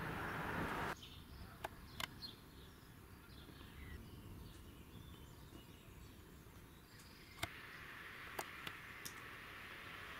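Outdoor ambience under a storm sky: a steady rushing noise that cuts off abruptly about a second in, then a quieter background with faint bird chirps and a few sharp clicks, before the rushing noise builds again in the second half.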